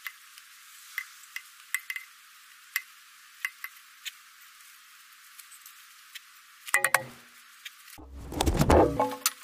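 Light metallic clinks and ticks as a steel exhaust pipe is handled. Just before the end come a brief clatter and then a louder clatter of about a second.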